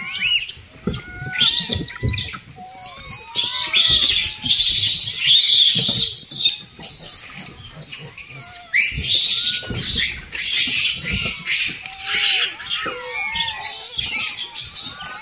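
A troop of rhesus macaques making many short squealing chirps that rise and fall and overlap, with repeated bursts of rustling noise among them.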